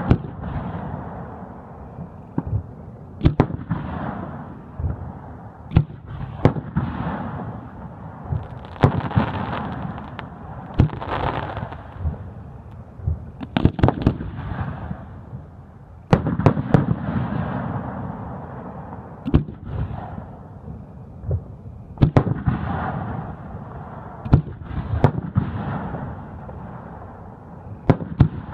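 Aerial fireworks display: shells bursting overhead in quick succession, sharp bangs every second or so, with crackle and rumble continuing between them.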